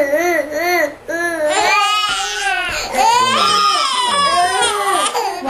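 19-month-old toddlers crying and wailing in a tantrum, the pitch wavering up and down, with a short break about a second in. It is the overtired crying of toddlers who missed their afternoon naps.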